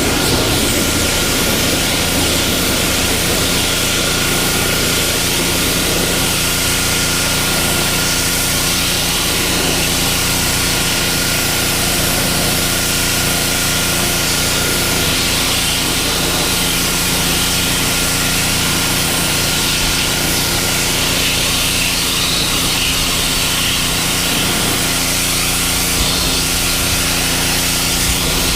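Pressure washer running steadily, its high-pressure water jet spraying a wooden deck to strip old stain and dirt, with a constant machine hum under a loud hiss of spray.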